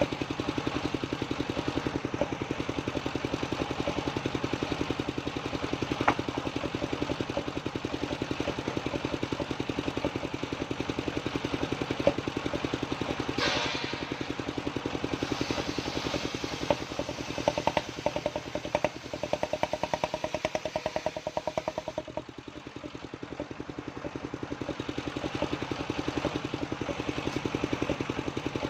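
Engine of a homemade sawmill running steadily with a fast, even pulse and some clatter. It briefly drops in level about three-quarters of the way through.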